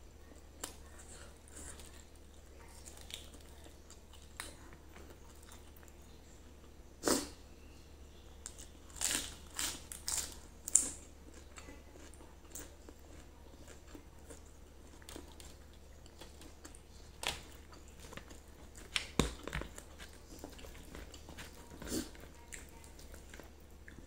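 Close-up eating sounds: chewing grilled chicken and rice, with scattered short, sharp crunches and mouth clicks. There is a cluster of them about a third of the way through and another past three quarters, over a faint steady low hum.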